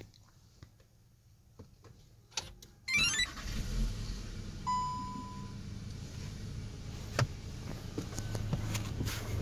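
A Skoda Superb's engine is started about three seconds in, with a short rising whine as it catches. It then idles steadily, and a single dashboard chime sounds shortly after the start. A few light clicks come before the start.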